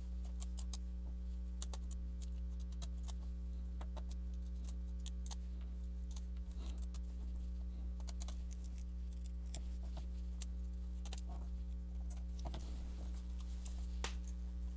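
Scattered small clicks and ticks of a small screwdriver working out the tiny screws that hold an Acer C720 Chromebook's trackpad, over a steady low hum.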